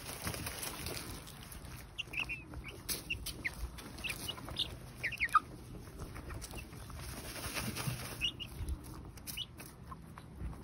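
Young chickens dust-bathing in loose soil: a steady rustling of feathers and scratched dirt, with short high chirps and soft clucks scattered through, bunched between about two and five seconds in and again near the eight-second mark.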